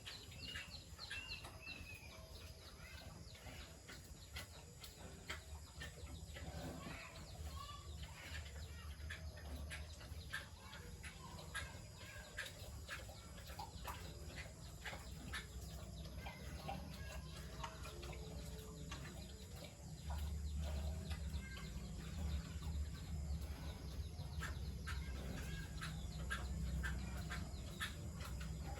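Birds calling, with many short sharp clicks and a low rumble that gets louder about twenty seconds in.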